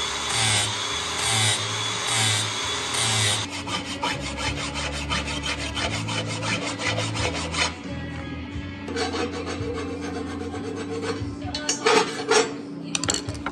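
Makita angle grinder with a flap disc grinding a fresh weld on a metal frame for the first three seconds or so, in pulsing passes. Then a hand file rasping along the metal edge in quick repeated strokes.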